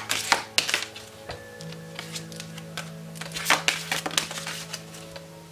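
A deck of oracle cards being shuffled by hand: irregular quick papery clicks and flicks as the cards slide and tap together. Soft background music with steady held tones runs underneath.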